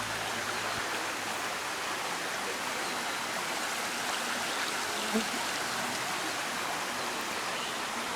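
A mountain brook rushing over rocks, a steady even hiss of water, with one short knock about five seconds in.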